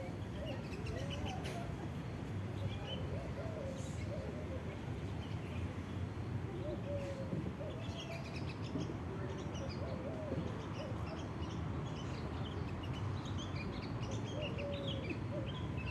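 Several birds calling over a steady low background noise: short low curving calls mixed with many quick high chirps.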